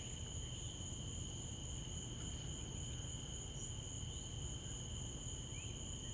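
Crickets chirring in a steady evening chorus, two high pitches held unbroken, over a faint low rumble of outdoor background noise.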